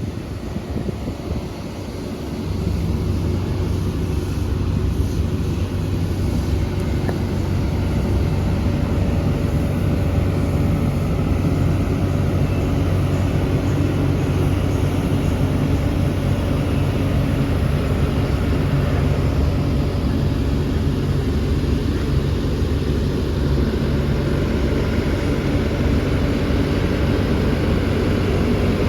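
Diesel engine of a Sany SY80U midi excavator running steadily, getting louder about two and a half seconds in and then holding an even note.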